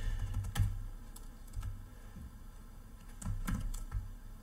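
Computer keyboard keys being pressed: a few scattered keystrokes, then a quick run of several about three seconds in, over a steady low hum.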